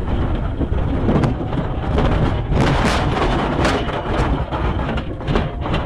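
Dashcam audio from a pursuing police cruiser driving hard over rough ground: a heavy rumble of engine, tyre and wind noise, broken by many jolting knocks and bangs, busiest in the middle.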